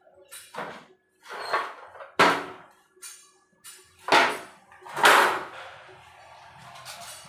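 A series of sharp knocks and scrapes, about five loud ones in the first five seconds, from metal gas-stove parts being handled and worked on; a lower scraping noise carries on near the end.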